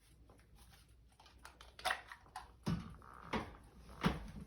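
Light clicks and knocks from handling shade-mounting hardware, four short sharp ones spaced under a second apart in the second half.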